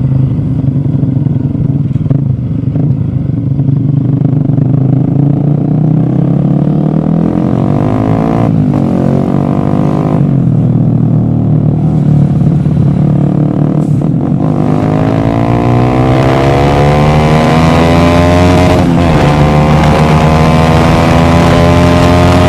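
A vehicle engine accelerating through the gears. Its pitch climbs, drops off at each shift about 8, 10, 14 and 19 seconds in, and climbs again.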